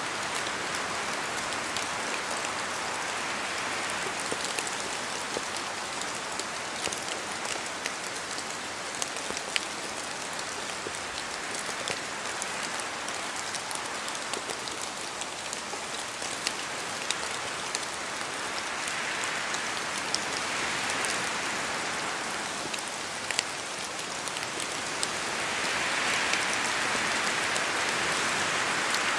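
Steady rain falling through forest trees, with scattered sharp drips landing close by. The hiss swells twice with the wind, most strongly near the end.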